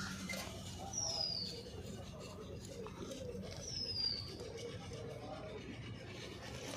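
A bird's short, high, falling whistle, heard twice about two and a half seconds apart, over faint background voices and light handling of metal parts.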